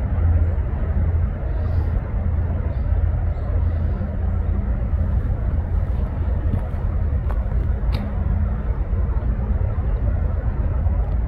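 Steady low rumble of an engine running at idle.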